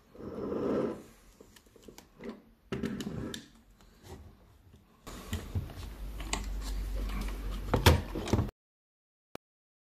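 Handling noises: knocks, clicks and rustling, with a low steady hum under clicking for a few seconds past the middle. The sound then cuts off suddenly.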